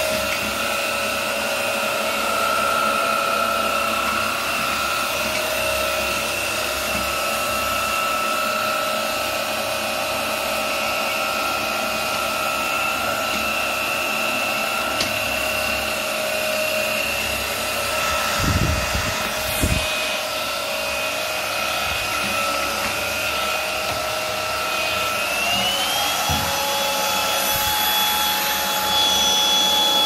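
VICSONIC S7 cordless stick vacuum cleaner running steadily, its motor giving a high whine over the rush of air. Two dull knocks come a little past halfway. Near the end the whine glides up to a higher pitch and holds there.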